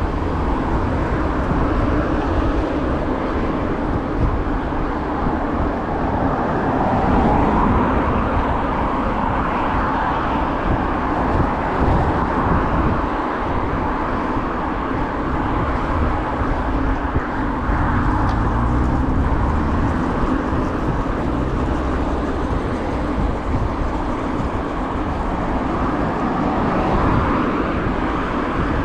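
City street traffic heard from a moving bicycle: cars driving on the road beside the bike lane, over a constant low rumble, the noise swelling now and then.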